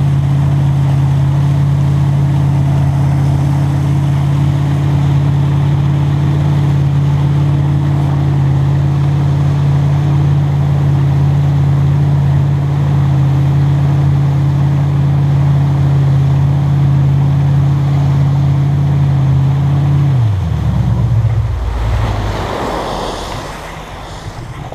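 Wake boat's engine running steadily under way, with the rush and spray of its wake. About twenty seconds in the engine's pitch drops sharply and it slows toward idle, and the sound falls away.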